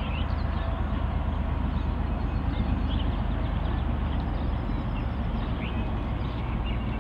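KiwiRail DC-class locomotive (EMD G22AR diesel-electric) moving slowly at low throttle, with a steady low diesel drone. The engine note shifts about two-thirds of the way in.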